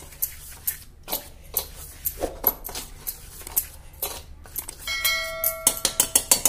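Wire whisk stirring a dry flour mix in a stainless steel bowl, its wires clicking and scraping against the metal a few times a second. About five seconds in, a bell-like metallic ring starts and holds, with a quick run of louder clicks over it.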